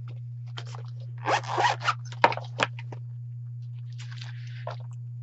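Zipper of a soft tool case being pulled open in a few quick strokes, then two sharp clicks and a soft rustle as the tools inside are handled. A steady low electrical hum runs underneath.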